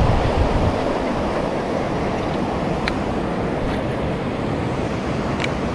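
Steady rushing noise of flowing river water and wind on the microphone, with two faint short clicks, one about halfway through and one near the end.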